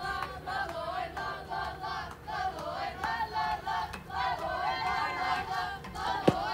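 A group of young women chanting a rhythmic cheer in unison, voices rising and falling in short repeated phrases. One sharp crack near the end.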